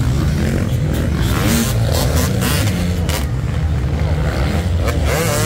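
Several off-road motocross bikes racing on a sand track, their engines revving up and down as the riders work the throttle over the jumps.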